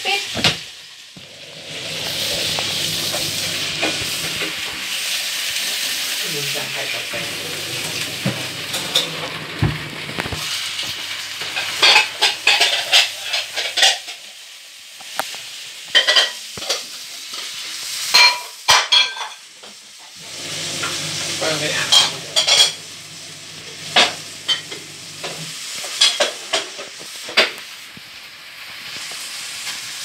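LG front-loading washing machine mid-wash: water hissing in through the detergent drawer at first, then the drum tumbling the load with a low motor hum that stops and restarts. Many sharp clinks and knocks come as the load turns.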